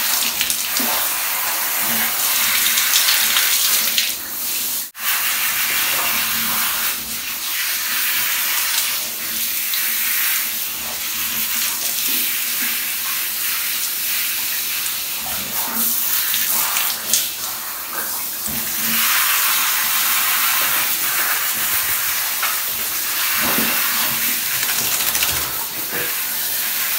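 Handheld shower head spraying a steady stream of water onto a wet dog in a bathtub, with a steady hiss that breaks off briefly about five seconds in.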